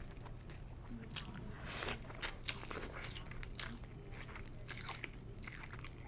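Close-up chewing of a mouthful of pho with shrimp, noodles and vegetables: irregular crunches and wet mouth clicks.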